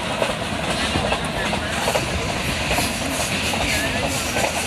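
Passenger coach of the Millat Express running on the track, heard from on board: a steady rumble of wheels on rails, with irregular clicks of the wheels over the rail joints.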